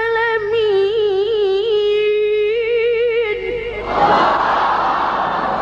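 A high voice chanting Quran recitation holds one long, ornamented note with a wavering pitch, ending the verse. About four seconds in, a crowd of listeners breaks into loud exclamations.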